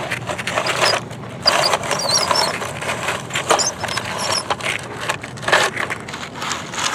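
Toy digger scraping and scooping through sand, a run of irregular gritty scrapes and rattles.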